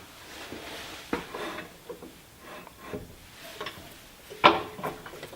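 Lathe tailstock being slid up the bed and set against the workpiece: scattered metal knocks and scraping, with one sharper clack about four and a half seconds in.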